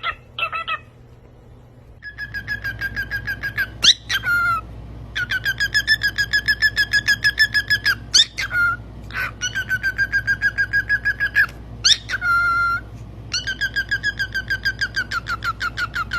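A pet parrot whistling long runs of fast repeated notes at one pitch, about six a second, broken every few seconds by a short rising whistle.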